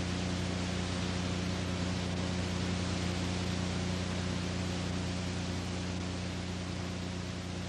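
Steady hiss with a low hum under it: the noise floor of an old analogue film or tape recording. No footfalls, gi snaps or kiai stand out.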